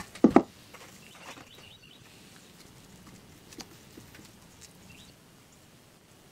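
Two sharp wooden knocks as the wooden post is handled against the bench, about a third of a second in, then faint dabbing and a few light taps of a small brush working thickened epoxy onto the post.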